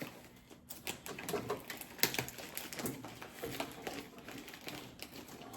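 Plastic-wrapped multipack of drink bottles being handled and worked open by hand: an irregular run of clicks, taps and crinkles.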